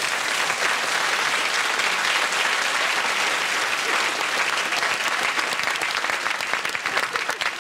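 Studio audience applauding, the clapping thinning into separate claps near the end.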